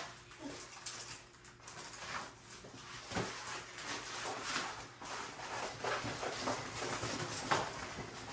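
Rustling and light crinkling from a diamond painting canvas being handled and rolled backwards to flatten it, with a couple of soft knocks.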